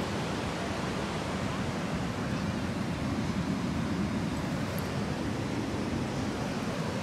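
Steady rush of ocean surf breaking on the beach, with wind buffeting the phone's microphone.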